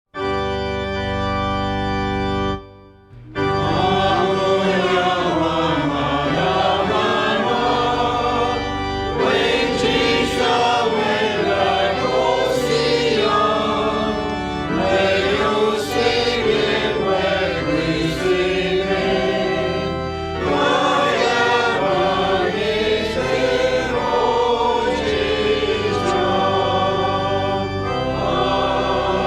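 Church offertory music: a held chord sounds, breaks off briefly after about two and a half seconds, then voices sing a hymn-like melody over accompaniment.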